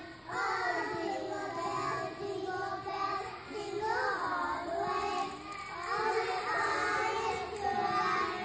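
A group of preschool children singing a song together.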